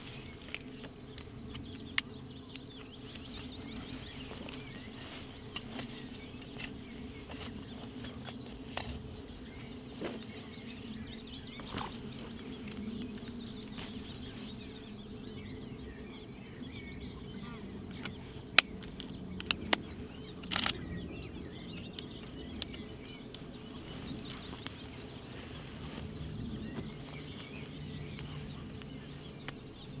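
Birds chirping faintly in the background while camera gear is handled: scattered sharp clicks and knocks of the camera and lens against the bag, with the rustle of a leafy camouflage cover. A short rasping sound about two-thirds of the way through.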